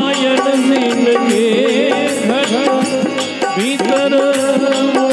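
Instrumental interlude of a Rajasthani devotional bhajan: a melody instrument plays bending, gliding phrases over a steady drum beat.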